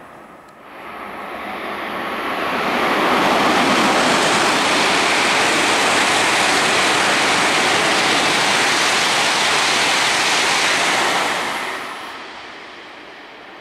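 E2 series Shinkansen passing at about 238 km/h. A loud rushing noise builds over the first few seconds, holds steady for about eight seconds, then fades away.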